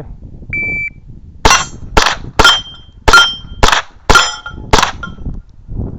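Shot-timer start beep, then seven quick .22 rimfire shots about half a second apart, several followed by the short ring of hit steel targets.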